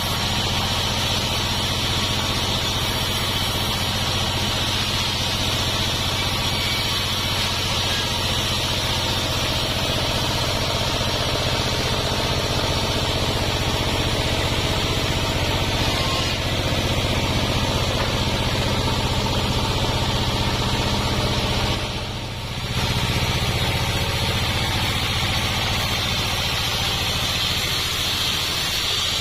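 Homemade sawmill running steadily while sawing gmelina timber: a constant motor hum under a steady high hiss, dipping briefly about three-quarters of the way through.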